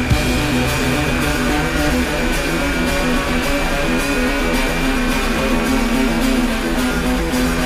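Guitar-driven rock music with a repeating strummed electric guitar riff over bass.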